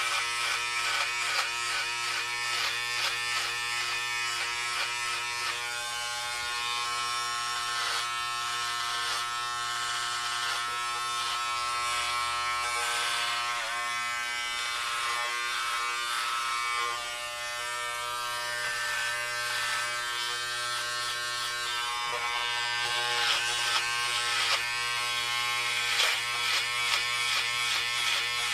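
Electric hair clippers buzzing steadily as they cut hair, with a crackly rasp over the hum that is rougher in the last few seconds.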